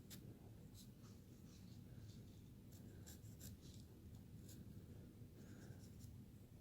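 Faint, light scratching cuts of a hand carving tool slicing into basswood, short strokes at irregular intervals over quiet room tone.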